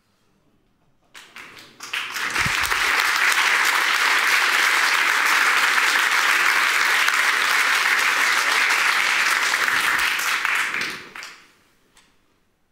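Audience applauding: a few scattered claps about a second in swell into steady full applause, which fades out shortly before the end.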